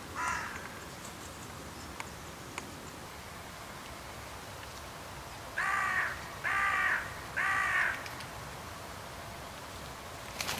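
Carrion crows cawing: one short call right at the start, then three loud, harsh caws in a row about six to eight seconds in.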